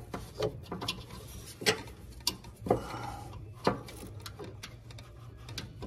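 Scattered light metallic clicks and taps from a hand working among the PTO idler pulley, tension spring and cable under a Craftsman T1500 lawn tractor, with a faint steady low hum beneath.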